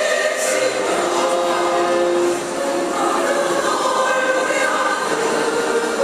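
Women's choir singing, holding long sustained notes.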